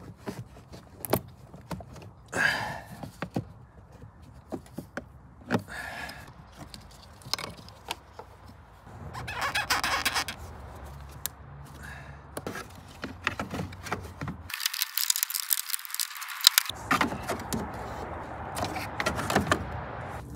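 Plastic engine-bay covers and the air box being handled and pressed into place: scattered clicks, knocks and rubbing, with a short squeak about two and a half seconds in.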